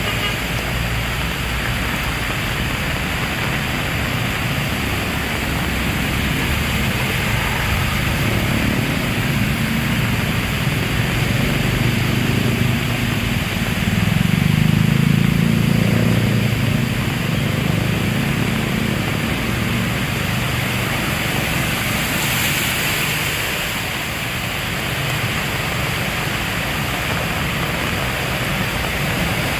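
Heavy rain pouring steadily. About halfway through, a low rumble of thunder swells and fades.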